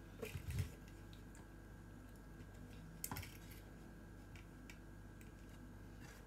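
Small clicks and soft knocks of a table knife against a plate while Nutella is spread on a pancake: a couple of dull knocks right at the start and one sharper click about three seconds in.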